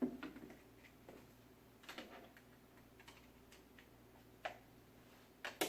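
Scattered light clicks and taps of plastic toy track pieces and Lego bricks being handled, a second or so apart, the loudest pair near the end.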